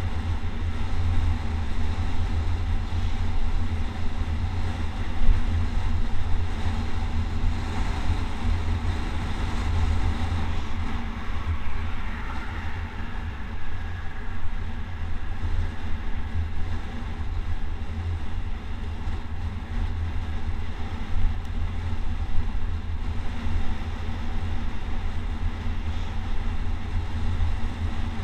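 Steady wind rushing over the microphone while moving fast downhill, a deep, unbroken rumble with a fainter hiss of rolling road noise above it.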